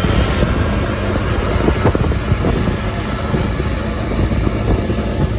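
Wind buffeting the microphone on a moving motorbike, with steady road and engine noise underneath.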